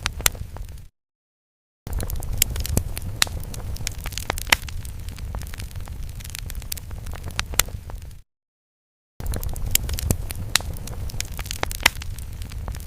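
Crackling fire sound effect: a steady low roar with frequent sharp pops and snaps. It cuts to dead silence twice for about a second, about a second in and again past the middle, where the loop restarts.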